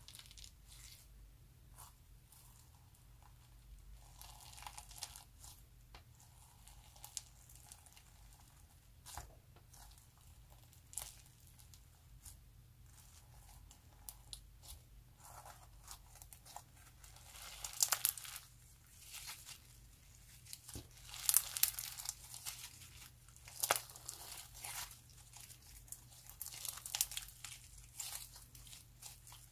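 Hands squeezing, poking and stretching a slime packed with plastic sequins (spangle slime), giving soft crinkling and crackling. The crackles grow denser and louder in the second half.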